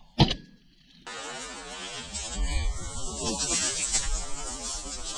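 A sharp knock, then almost a second of near silence, then steady rough rustling and rumbling as a hunter moves quickly through dry brush with his shotgun, the body-worn camera jostling.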